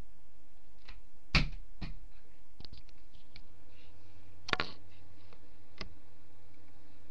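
A few short, sharp clicks and knocks, the two loudest about 1.4 s and 4.5 s in, over steady background hiss.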